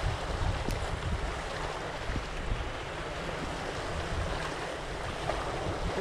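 Sea waves washing and sloshing among the concrete tetrapods of a breakwater, a steady rushing with wind rumbling on the microphone.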